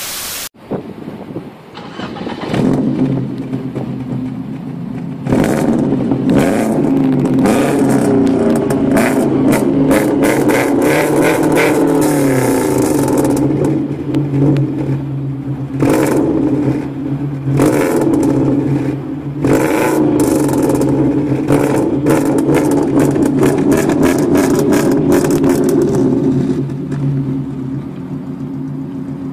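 A burst of TV-static hiss, then a Lada Priora's engine running loud through a tuned twin-outlet exhaust, revved repeatedly in short sharp blips and one longer rise and fall of revs.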